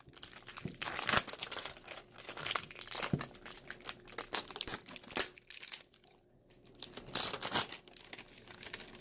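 Packaging of a Poopsie toy crinkling and tearing as it is pulled open by hand, in irregular crackling bursts with a short lull about six seconds in.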